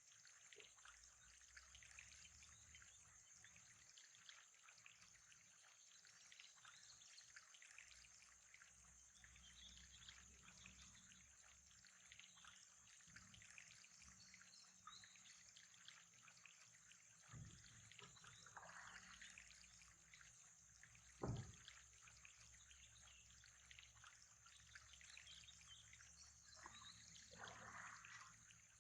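Faint trickling water, with one sharp knock about two-thirds of the way through.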